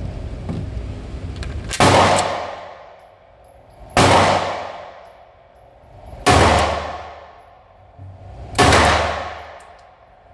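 Four shots from a Beretta APX A1 Full Size 9mm Luger pistol, fired slowly about two seconds apart, each crack followed by a long echo that dies away.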